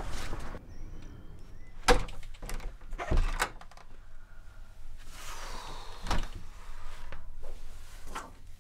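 A front door being pushed shut, followed by several sharp knocks and thuds, the loudest about two seconds in.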